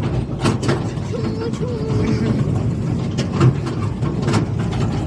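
A vehicle running with a steady low rumble and frequent knocks and rattles, with faint voices in the background.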